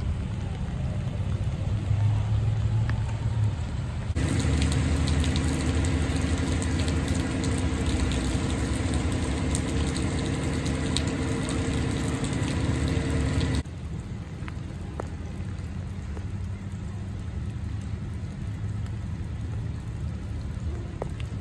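Steady rain with vehicle engine noise and a low rumble. From about four seconds in, a louder steady mechanical hum sits over the rain and stops abruptly about thirteen seconds in, leaving rain and the low rumble.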